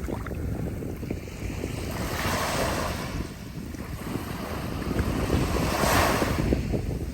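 Ocean waves breaking and washing on the shore, two surges of hiss about two and six seconds in, over a steady low rumble of wind on the microphone.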